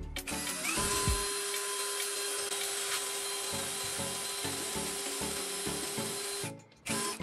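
Cordless drill running steadily with a constant motor whine as a twist bit bores a hole into a wooden board. It stops about six and a half seconds in, and a brief second burst follows just before the end.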